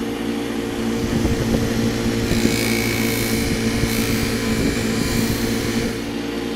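Belt-driven bench buffing wheel running steadily on its electric motor, with a steel hand-plane chip breaker pressed to the hard felt wheel to polish its edge. From about two seconds in to near the end the contact adds a hissing rub with a faint thin whine over the motor hum.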